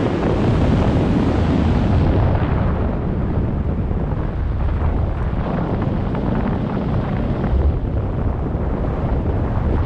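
Airflow buffeting a camera's microphone while flying under an open parachute canopy: steady wind noise, heaviest in the low end, its higher hiss easing a little after about two seconds.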